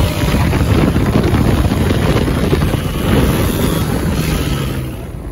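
Vehicle on the move: engine and road noise with wind buffeting the microphone, easing off a little near the end.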